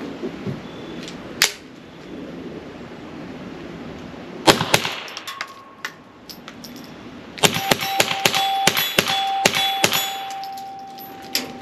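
Suppressed Ruger .22 rimfire shots: one shot, a pair, then a quick string of about ten, each a sharp crack rather than a loud report. A metallic ringing hangs on through the rapid string and fades after it.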